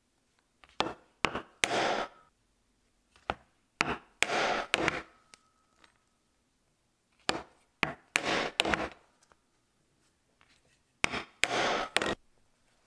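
Diamond stitching chisel being worked through leather to punch stitching holes beside a zipper. It comes in four rounds, and each round is a few sharp knocks followed by a short scraping noise.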